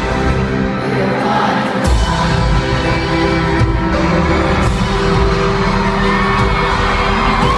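Live band music with a female lead singer, heard loud from within the audience on a phone, with whoops from the crowd. The bass drops out briefly early on and comes back in strongly about two seconds in.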